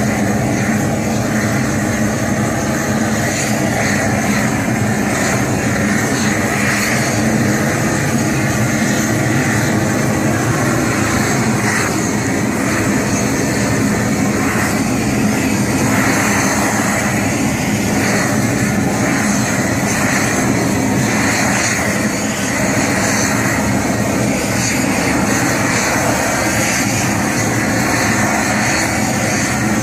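Gas burner torch burning steadily as its flame chars the surface of wooden posts, the burning stage of shou sugi ban wood preserving.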